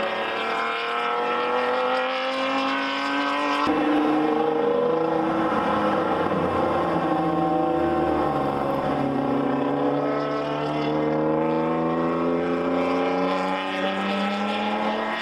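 Racing car engines heard from trackside, pulling hard down the track with their notes climbing steadily in pitch. The sound changes abruptly about four seconds in, and the pitch drops back around the middle before climbing again.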